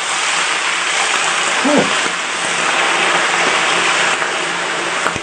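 Hot oil poured over seafood, sizzling loudly and steadily. A short vocal sound comes about two seconds in.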